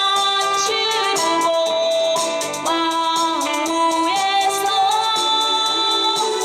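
Trot song playing: a pitched melody with sliding notes over a steady backing track.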